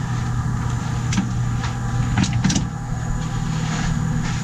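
A golf cart's front-mounted electric winch runs steadily, hauling the cart up into a pickup truck bed, with a few sharp clicks and knocks from the strap and cart along the way.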